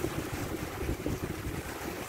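Wind buffeting the microphone outdoors, an uneven low rumble that rises and falls in gusts.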